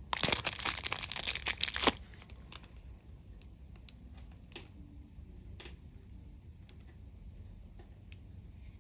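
Packaging being handled, crinkling and tearing loudly for about two seconds, followed by a few faint light clicks.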